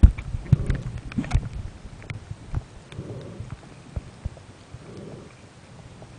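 Dull irregular knocks and thumps on a camera's sealed underwater housing, loudest in the first second and a half and sparser after. A soft muffled swishing comes back about every two seconds.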